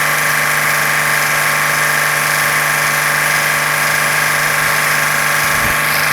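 2001 VW Jetta's 2.8 VR6 engine running steadily at about 1000 rpm. It carries the abnormal noise that the owner traced to worn intake manifold shift rod bushings. A brief low thump comes near the end.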